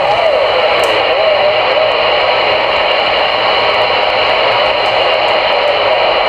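CRE 8900 CB radio receiver on channel 22 (27.225 MHz) putting out steady, loud static and hiss through its speaker in a gap between transmissions. A faint wavering tone rides on the static for the first second and a half.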